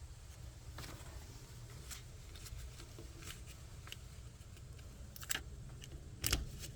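Scattered light clicks and rustles of hands working with paper and tools, over a low steady hum, with one sharper knock near the end.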